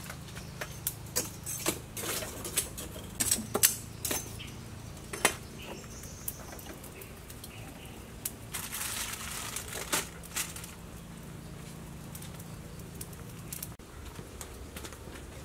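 Aluminium foil parcel crinkling, with scattered light clicks as it is handled and set on a charcoal stove's grill rack. The clicks are thickest in the first few seconds, and there is a short rustle about nine seconds in.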